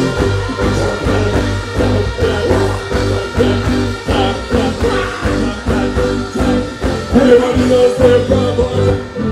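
Live band playing an upbeat Caribbean groove with a steady beat through the stage PA, drums, bass and guitar, with voices over it at times.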